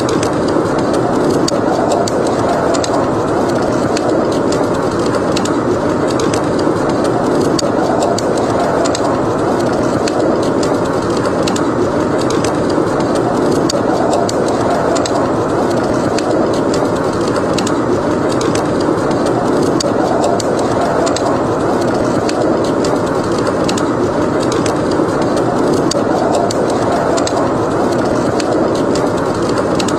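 Blizzard wind rushing steadily, swelling and easing every few seconds, with a wood fire crackling in many small sharp pops over it.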